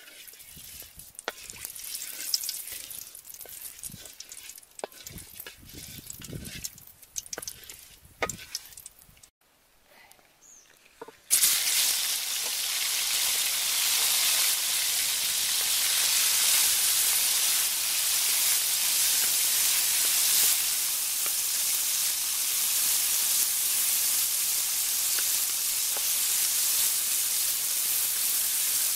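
A wooden spatula scraping and tapping in a metal wok of oil. About eleven seconds in, chopped eel pieces hit the hot oil and a loud sizzle starts suddenly, then runs on steadily as they are stirred and fried.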